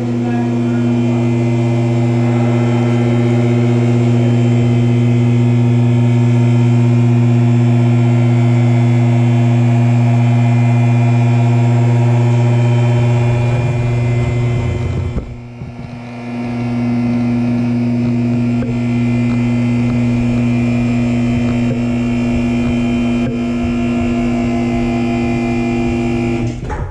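Electric-hydraulic pump motor of a Forward two-post car lift giving a loud, steady hum as it raises the car. It drops out briefly just past halfway, starts again, and cuts off at the end as the lift stops.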